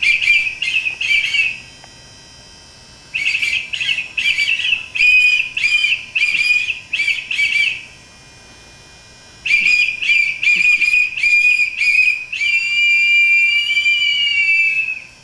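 Two small handheld whistles, one of them a compass whistle, blown together in harmony: three phrases of short rhythmic toots with pauses between, the last ending on one long held note that wavers slightly.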